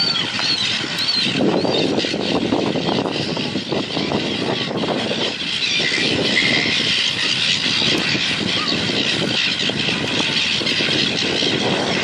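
A flock of silver gulls calling as they squabble over scraps, with a few short squawks in the first second and another about six seconds in. Beneath the calls runs a steady rushing noise.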